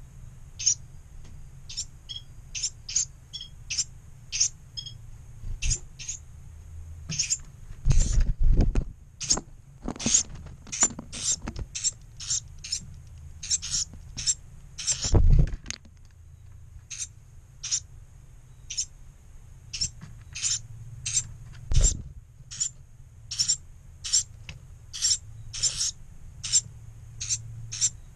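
Carolina wren fledglings giving short, very high begging calls over and over, about one or two a second. A few loud low thumps and flutters close to the microphone come as the adult wren flies in beside them to feed.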